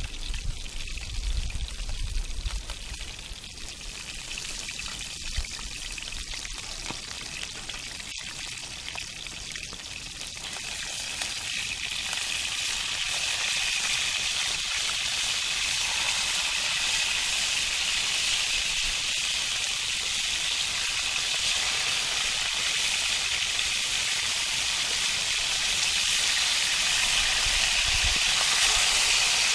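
Fish frying, a steady sizzle that swells about ten seconds in and then holds.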